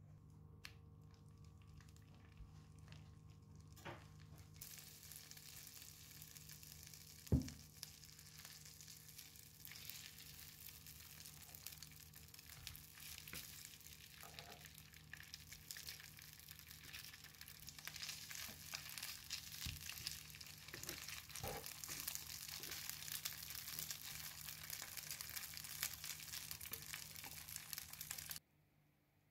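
Slices of food sizzling and crackling as they fry in hot oil in a frying pan, starting a few seconds in and growing louder, with a single sharp knock about seven seconds in. A low steady hum runs underneath.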